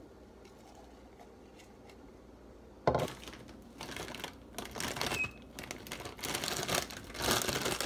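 A sharp knock about three seconds in, then irregular crinkling and rustling of a plastic bag of frozen strawberries being handled.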